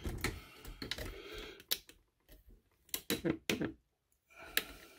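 Handling noise from a camera being moved and repositioned: a few sharp clicks and knocks, with a cluster of them about three seconds in, over soft rustling.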